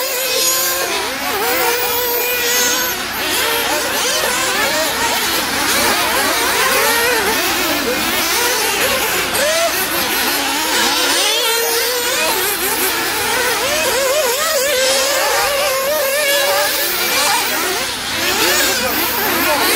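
Several nitro RC off-road cars racing, their small two-stroke glow engines whining high and revving up and down over one another.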